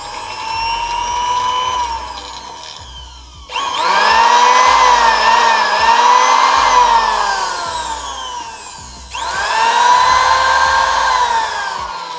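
Repaired sewing machine motor, a small brushed universal motor, whining as it spins. First it runs wired in series, its pitch rising and then falling away. Then, on 220 V AC directly, it starts abruptly with a louder, higher whine that wavers and slowly winds down, and it is started once more near the end.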